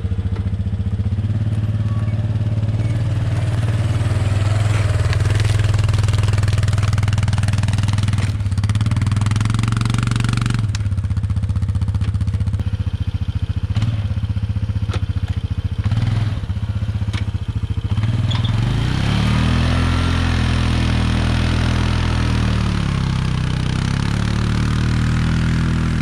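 ATV engine running under load as it drags a fallen tree on a chain through snow, wheels spinning. The engine note rises and falls in the second half, with a few knocks near the middle.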